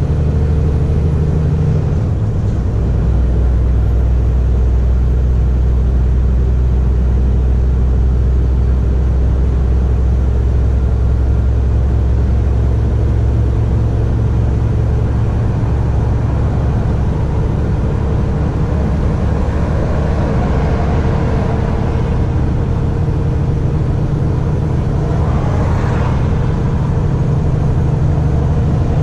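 Scania R450 truck's diesel engine running steadily on the road, a loud low drone with road noise; the engine note shifts lower about two seconds in, and a brief rush of hiss rises a few seconds before the end.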